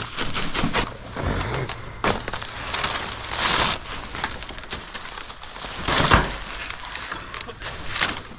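Scattered knocks, clatters and scrapes of handling and moving about inside a wooden deer blind, with a short burst of hiss about three and a half seconds in and louder knocks about six and eight seconds in.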